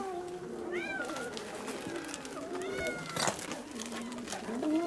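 Many stray cats meowing over one another while they crowd and scramble for cat food, with repeated short rising-and-falling meows. A brief burst of noise comes about three seconds in.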